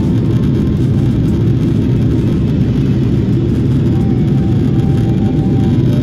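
Steady low rumble of a jet airliner in flight, engine and airflow noise heard inside the passenger cabin.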